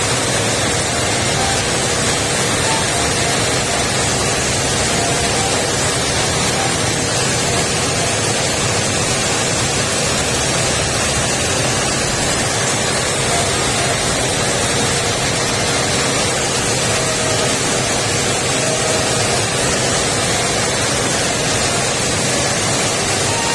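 Coffee milling machinery running steadily: a loud, even rushing noise with a constant hum under it.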